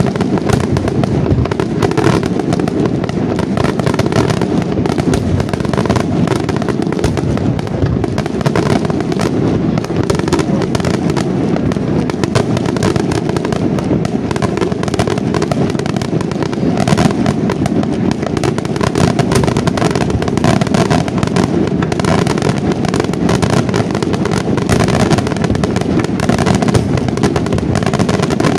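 Daytime fireworks barrage: a dense, unbroken stream of rapid bangs and crackles with no pauses.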